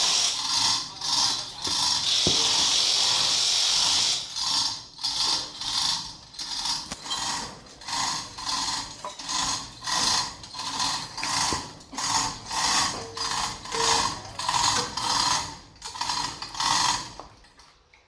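Ratcheting hoist worked in steady repeated strokes, a little under two a second, lifting a part into place. A steady hiss fills the first four seconds, and the strokes stop about a second before the end.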